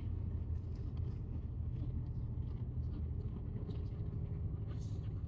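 Highway bus driving along, heard from inside the passenger cabin: a steady low engine and road noise, with faint light ticks now and then.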